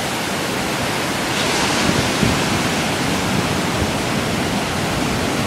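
Ocean surf breaking and washing in, a steady rushing hiss.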